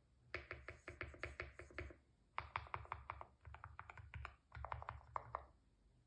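Typing on a custom 60% keyboard: quick runs of keystroke clicks in four bursts, with short pauses between them.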